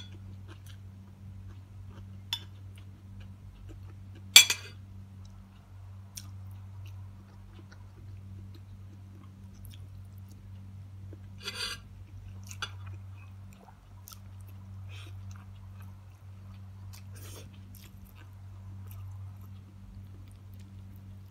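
Close-miked chewing and mouth sounds of a person eating a meal by hand, over a steady low hum. A few sharp clicks break through, the loudest about four seconds in, another pair a little after the middle and one more near the end.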